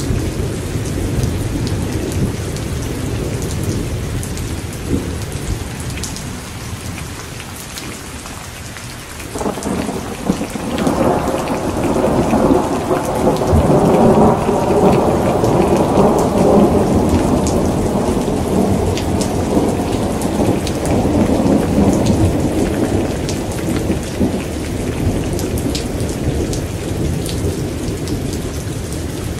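Thunderstorm: steady rain with raindrop ticks, and thunder that breaks out suddenly about nine seconds in, swells into a long rolling rumble and slowly dies away over more than ten seconds.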